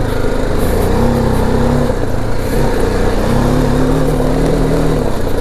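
BMW G310GS's 313 cc single-cylinder engine running as the motorcycle is ridden, its revs dipping about two seconds in and then rising again as the throttle is worked.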